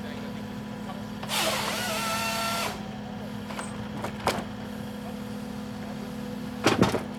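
PONSSE H6 harvester head working on an excavator, with the machine's engine and hydraulics running steadily throughout. About a second in, the head's hydraulic chain saw cuts through a log for about a second and a half. There is a short knock later, and a louder clatter of knocks near the end.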